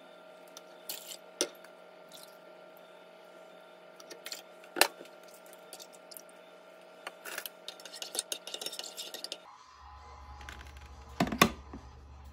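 Utensil clinking and tapping against a metal rice-cooker inner pot while milk and yogurt drink are stirred together, in scattered light clinks with one sharper knock about five seconds in. Near the end, a few loud clacks from handling an electric rice cooker.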